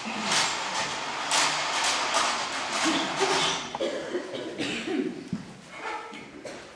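Heavy stage curtain being drawn open along its rail, a rushing, scraping noise for about the first four seconds. After it come faint voices.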